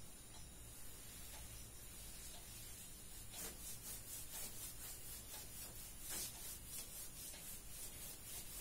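Whiteboard duster wiping marker writing off a whiteboard: faint, repeated rubbing strokes, a few a second, clearer from about halfway.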